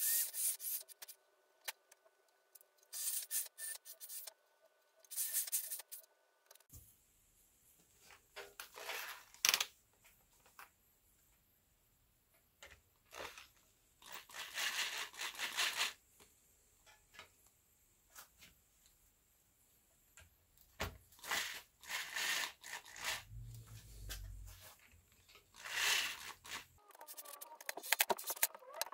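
Cordless drill run in short bursts, first pressing indents into the ski's top sheet, then driving the screws that fasten the ski binding to the ski, with handling and scraping noise in between.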